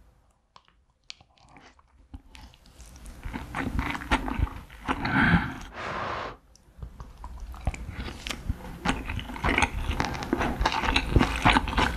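Close-miked chewing of a mouthful of rice and spicy braised cutlassfish: wet mouth smacks and rapid small clicks. The chewing starts after a second or two of near silence, and there is a louder stretch about five seconds in.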